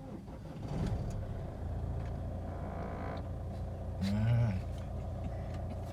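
Chevrolet Cruze engine running at idle, a steady low hum, while its check engine light is on. About four seconds in there is a short rising-and-falling vocal sound.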